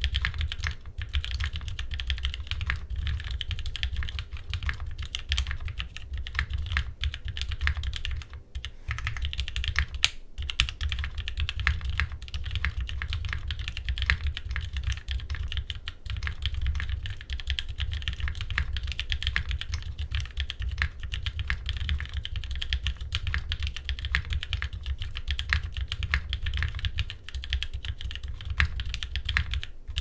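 Fast, continuous typing on a Rama Works Thermal SEQ2 mechanical keyboard fitted with NovelKeys Cream switches, GMK Umbra keycaps and an aluminium plate with Poron pads: dense keystroke clacks with brief pauses about eight and ten seconds in.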